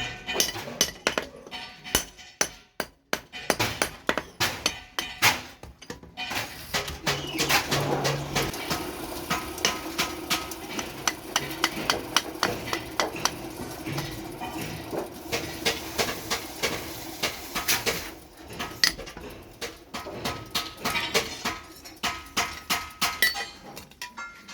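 Hand hammer striking steel on an anvil in a steady run of ringing blows, about two to three a second, pausing briefly a few times.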